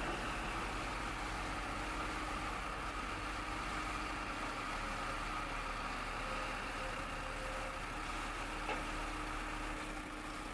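Diesel engine of a JCB backhoe loader running steadily, with one brief click about nine seconds in.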